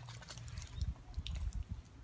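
Footsteps in flip-flops on loose gravel: a few light crunches and clicks over irregular low thumps and rumble from the phone being moved about.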